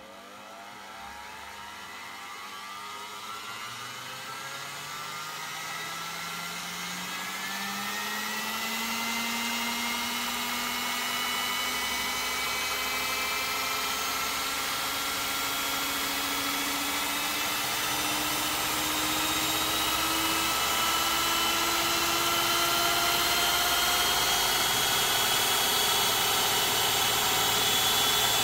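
Electric hand mixer's motor whining as its beaters whip cream, the pitch rising steadily and the sound getting louder as the supply voltage is turned up.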